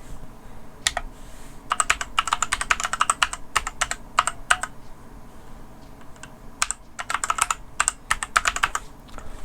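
Typing on the ADX Firefight WMK05 compact mechanical keyboard with red switches: quick runs of clacking keystrokes in a few short bursts with pauses between.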